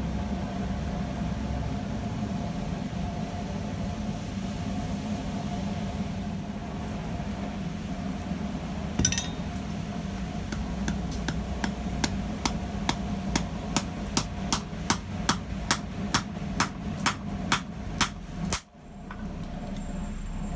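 Hand hammer striking the end of a rivet rod to form its head in a rivet header: a single blow, then a fast even run of about three blows a second that grows louder before stopping abruptly. A steady hum runs underneath.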